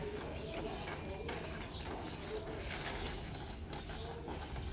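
Doves cooing in repeated short calls, with a few brief crackles of plastic as a cat tugs at a clear plastic bag.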